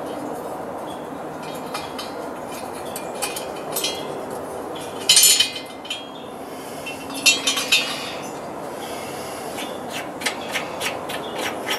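Metal scraping and clinking as the cylinder head of a two-stage air compressor pump is worked up off its studs and lifted clear of the cylinder. The loudest scrapes come about halfway through, and a run of small sharp clicks follows near the end, over a steady background hum.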